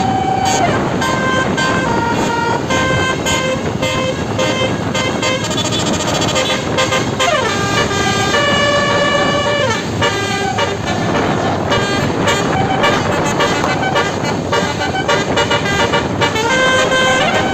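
Basuri 12-note telolet bus horn playing a tune of held notes that step from pitch to pitch, with a couple of sliding notes near the middle, over steady background noise.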